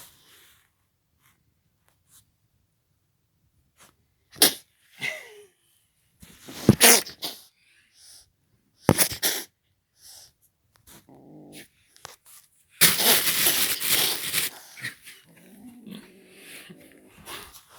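A young pet animal growling at the camera: several sharp breathy bursts, the longest about 13 seconds in, with short low growls in between.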